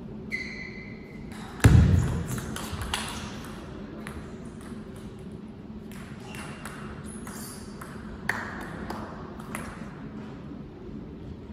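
Table tennis play and the pause between points: sharp clicks of a celluloid ball on bat, table and floor. A short high ringing tone comes in under half a second, and one loud thud about 1.7 s in, then scattered clicks and light knocks as the ball is collected and bounced before the next serve.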